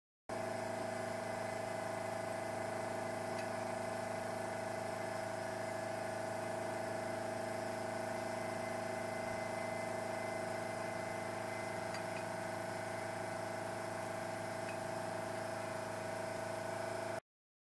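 A steady mechanical hum made of several fixed tones, unchanging throughout, which starts and cuts off abruptly.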